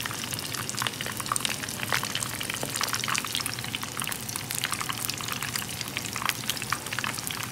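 Frozen lumpia (Filipino spring rolls) deep-frying in a pan of hot oil: a steady sizzle thick with small crackling pops. The oil is bubbling hard around the pale rolls, a sign they are not yet cooked through.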